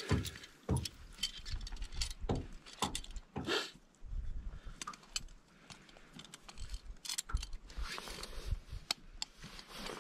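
Steel beaver trap and its chain being handled: irregular metal clinks and rattles as the trap is worked in the hands, with a few duller knocks.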